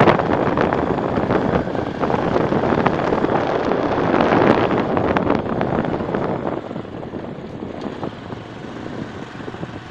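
Small motorcycle running along a dirt road, with wind rushing over the microphone. Loud for about the first six seconds, then fading.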